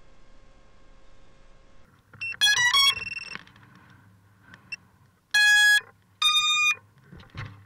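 FPV racing quad's motors sounding their ESC startup tones after the battery is connected: a quick run of stepped beeps about two seconds in, then two longer single-pitch beeps a little past halfway.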